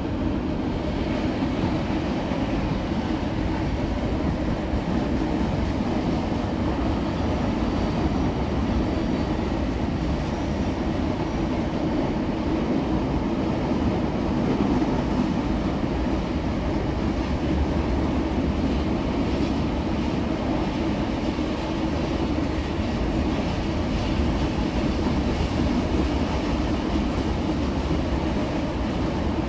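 Rail grinding machine working along the track: a steady, unbroken roar of its grinding stones on the rails together with its running machinery. The grinding is taking off the burrs that train wheels leave on the rail heads.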